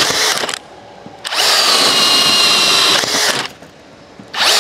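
Hilti Nuron cordless drill boring holes through a stack of wooden boards, running in bursts with a steady high whine. One hole finishes about half a second in, the next is drilled from just over a second to about three seconds, and the drill starts again near the end.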